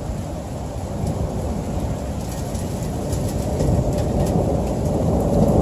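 Loud thunder rumbling over steady rain, growing louder toward the end.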